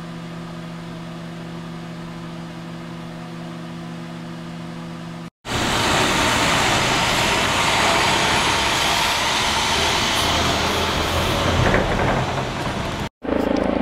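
Sharp microwave oven running with a steady electrical hum made of several even tones. About five seconds in it cuts off abruptly and is replaced by a much louder, rough, steady rushing noise, like a running vehicle engine heard outdoors.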